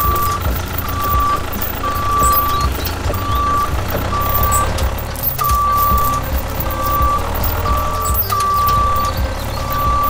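Vehicle reversing beeper sounding about once a second, the beeps of uneven length, over a continuous low engine rumble.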